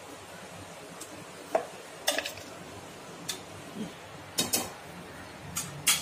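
Sharp metal clinks and knocks as a steel mixer-grinder jar is tapped against the rim of an aluminium pot to empty ground masala paste into it, then a steel ladle knocks against the pot while stirring the gravy. The clinks come singly and in small clusters at uneven intervals.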